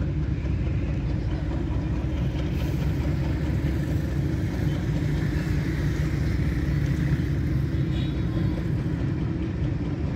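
Diesel locomotive engine running steadily with a deep, even drone as it hauls a passenger train out of the station.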